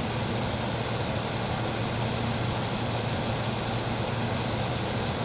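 1978-79 GE Sahara 14-pint dehumidifier running just after start-up: its Aspera compressor gives a steady low hum under the even rush of its fan blowing air through the coils.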